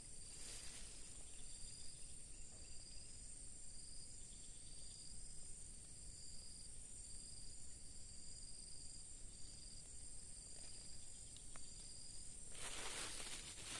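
Insects, crickets by the sound, chirping steadily in a high continuous trill with a pulsing higher note, over a low rumble of outdoor background noise. About a second before the end a loud rustling rush starts.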